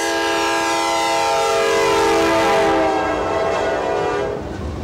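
Diesel freight locomotive's air horn sounding one long chord of several notes as the train passes. The pitch drops slightly about halfway through, and the horn cuts off near the end, leaving the rumble and clatter of the passing train.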